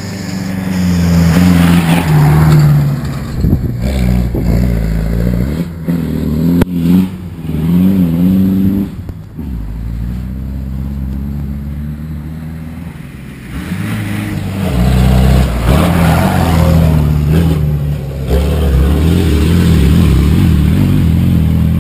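Rally car engine running hard, its pitch rising and falling as it accelerates, changes gear and lifts off. It goes quieter for a few seconds in the middle, then runs hard again.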